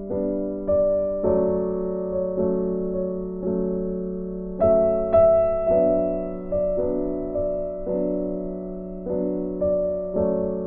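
Background music: a soft, slow piano or electric-piano melody over sustained chords.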